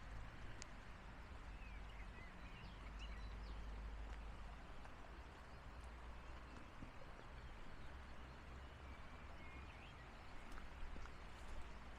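Faint outdoor ambience: a steady, even rushing noise with a low wind rumble, and a few short bird chirps, once in the first few seconds and again near the end.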